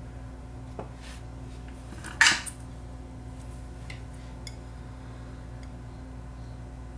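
Small clicks and clatter of hand tools being handled at a workbench while a soldering iron is taken up, with one brief, louder metallic scrape about two seconds in. A low steady hum sits underneath.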